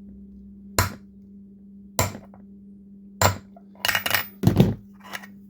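Hammer tapping on a socket to drive a wheel bearing into a minibike wheel rim: single metal strikes about a second apart, then a quicker run of hits near the end.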